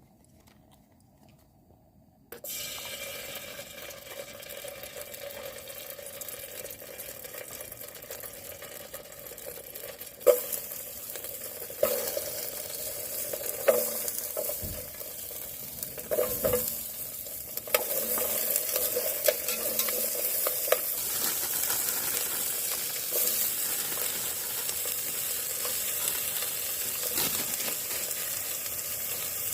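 Food sizzling in a frying pan, starting suddenly about two seconds in and growing louder in the second half. A few sharp knocks of a utensil against the pan come in the middle.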